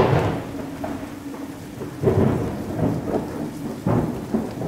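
Thunderstorm: steady rain with rolls of thunder, swelling at the start, about two seconds in and again near four seconds.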